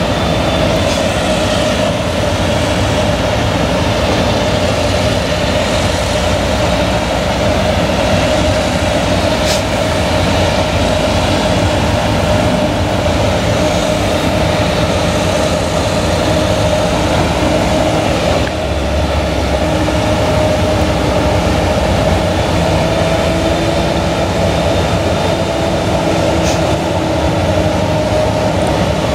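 Claas Jaguar 970 forage harvester chopping maize, its MAN V8 engine running steadily under load with a constant whine over the engine note.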